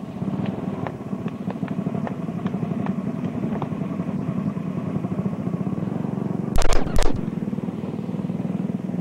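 Small 5 hp go-kart engines running steadily out on the track, a continuous low buzzing drone. About six and a half seconds in come two loud sharp cracks, half a second apart.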